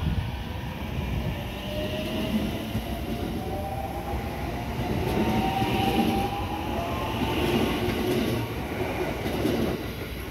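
521 series electric multiple unit pulling out and accelerating past: its motor whine rises steadily in pitch over the wheel and rail noise.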